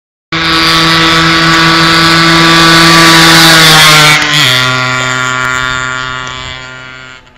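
A motor vehicle passing close by: a steady engine tone with a loud rushing hiss that starts suddenly, drops in pitch about four seconds in as it goes past, then fades away.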